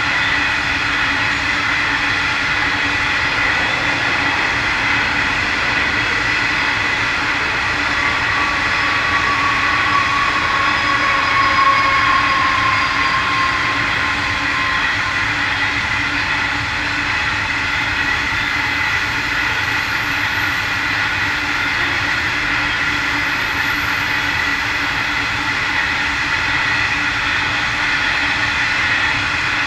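Long loaded coal train of hopper wagons rolling by on narrow-gauge track: a continuous rumble of wheels on rail with steady high-pitched tones over it, swelling slightly about twelve seconds in.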